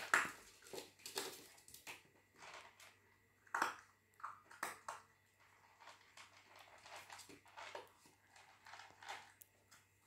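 Eight-week-old border collie puppy eating from a plastic bowl, with irregular crunching and clicking sounds.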